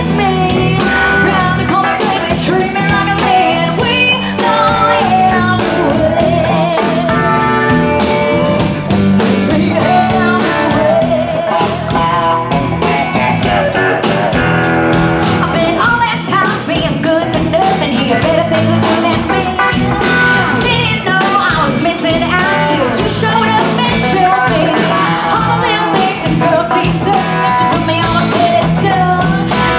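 Live rock band playing: electric guitars, bass guitar and drum kit, with a woman singing lead through a microphone.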